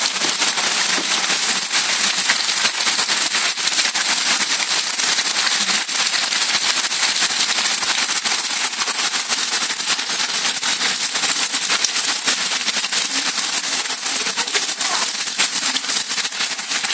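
Heavy rain pelting down on cars, leaves and tarmac: a loud, steady, dense crackle of drops that does not let up.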